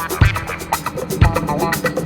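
Music with a steady beat and plucked guitar.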